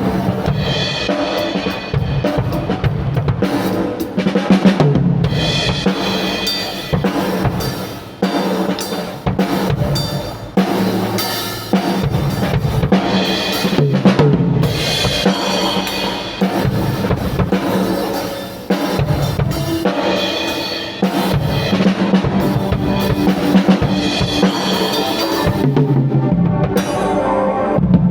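Drum kit being played with kick drum, snare and cymbals in quick, busy hits, together with some held pitched instrument notes.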